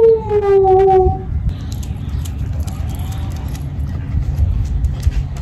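A long drawn-out voice sliding slowly down in pitch for about a second, then a steady low rumble of wind on the microphone with scattered light clicks.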